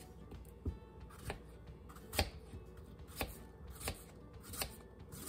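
Small kitchen knife slicing a peeled apple on a cutting board, a sharp tap each time the blade goes through and meets the board, about six cuts spaced a little under a second apart.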